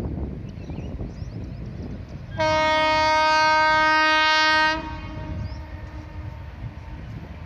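Horn of a WCAM3 electric locomotive sounding one steady blast of about two seconds, starting about two and a half seconds in.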